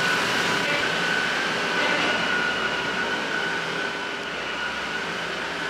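Pumping machinery running steadily, with a constant high whine over a rushing noise. It is pumping floodwater out of basements.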